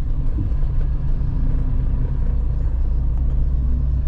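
Van cabin noise on the move: a steady low engine and road rumble with a faint hum.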